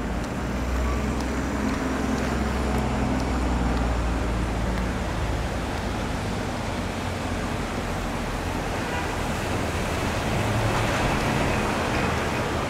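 City street traffic noise: a steady wash of passing vehicles, with a low hum that is strongest for the first five seconds or so.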